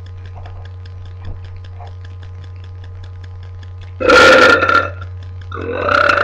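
A girl burping: a short, loud burp about four seconds in, then a second, longer burp starting about a second and a half later.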